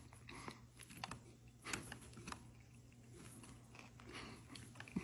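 Faint, scattered crinkles and clicks of a foil-wrapped burrito being handled and eaten.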